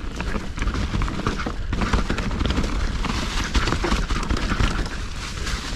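Mountain bike riding a rough trail: a continuous clatter of quick, irregular knocks and rattles from tyres, chain and frame over dirt and rocks, over a steady low rumble.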